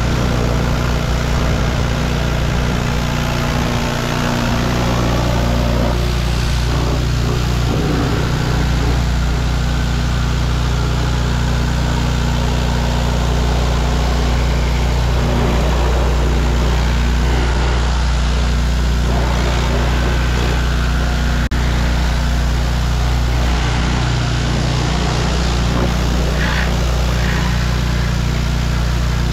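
Gas pressure washer engine running steadily under load, with the hiss of its high-pressure water spray.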